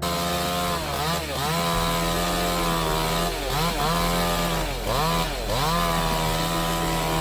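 Chainsaw engine running at high revs, its pitch dipping sharply and recovering about five times.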